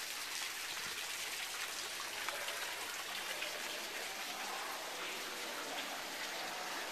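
Fountain water splashing steadily, an even hiss with no breaks.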